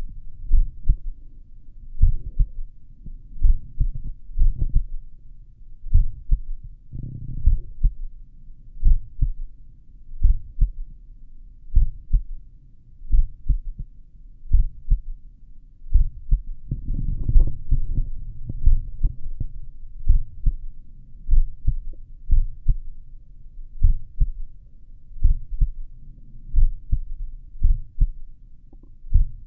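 Human heartbeat heard through a stethoscope at the cardiac apex: slow, regular low thumps at about one beat a second, with a brief stretch of low rumbling noise around the middle.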